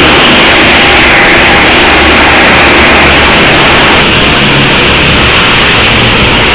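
Loud, steady car wash bay noise: washing machinery running with a constant low drone under a dense hiss. The mini camera's small microphone picks it up as a heavy wall of noise. The sound changes slightly at a cut about four seconds in.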